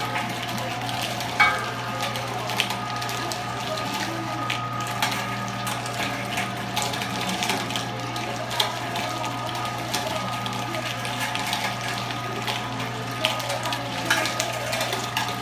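Weston #22 electric meat grinder running steadily while grinding raw chicken, bones and all: a constant motor hum and whine with irregular sharp cracks and clicks throughout, one louder crack about a second and a half in.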